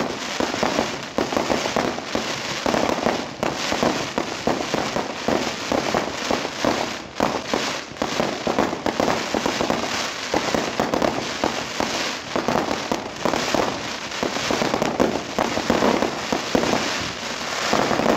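Aerial fireworks bursting in quick succession: a continuous barrage of bangs and crackles with no pause.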